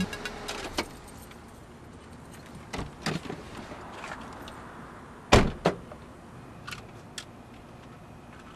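Car door opened and shut as the driver climbs out: a few clicks and clunks, then one loud thump a little past halfway with a smaller knock right after.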